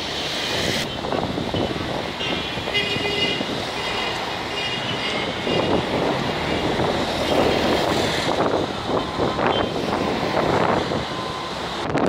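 Rough sea surging and breaking against rocks and concrete breakwater blocks, mixed with strong wind buffeting the microphone. The roar swells and eases with the waves and gusts.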